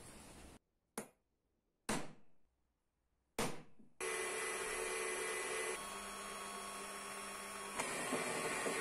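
Three sharp knocks, then an electric workshop power tool starts and runs steadily with a humming whine, its tone shifting once partway through.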